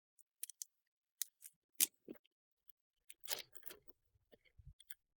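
Scissors snipping open plastic packaging: a string of separate sharp snips, then a short rustle of the packaging about three seconds in.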